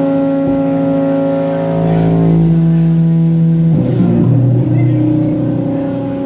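Live band holding a sustained chord, a steady drone rich in overtones, that moves down to a lower chord about four seconds in.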